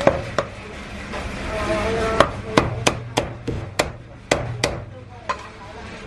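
Heavy Chinese cleaver chopping marinated goose into slices on a thick round wooden chopping block. Two chops come at the start, then a run of about eight sharp chops, roughly three a second, from about two seconds in, and one more near the end.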